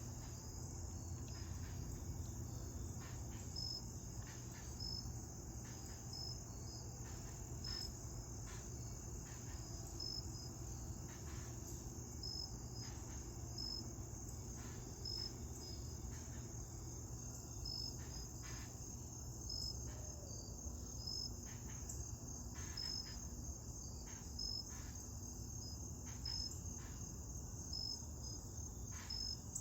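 An insect chorus: a steady high trill, with short high chirps and dry ticks repeating irregularly about once a second.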